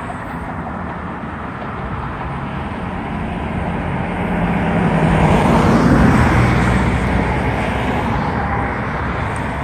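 A road vehicle passing on the bridge: engine and tyre noise swell to a peak about six seconds in and then fade, over a steady traffic hum.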